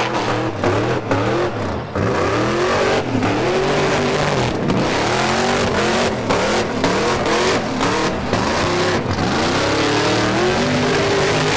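Burnout car's engine revving hard, its pitch rising and falling over and over, over the steady hiss of its tyres spinning in a burnout.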